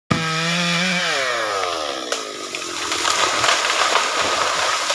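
Chainsaw running at high speed, its pitch falling over about a second, then running on with a rougher, noisier sound broken by a few sharp cracks.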